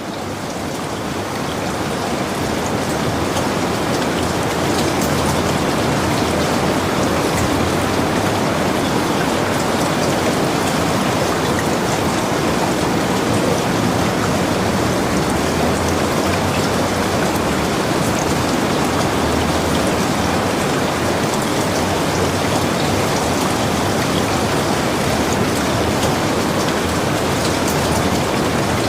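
Steady rain falling, with fine patters of individual drops. It swells up over the first few seconds and then holds even.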